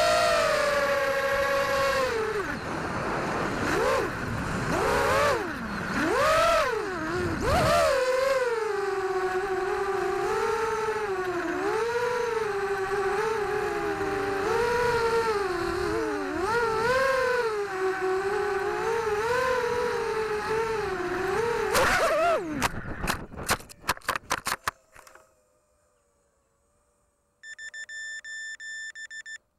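Vortex Pro 250 FPV racing quadcopter's brushless motors whining, the pitch rising and falling with the throttle. Near the end a quick run of knocks as it crashes, the motors cut out, and a few seconds later the upturned quad starts repeated beeping.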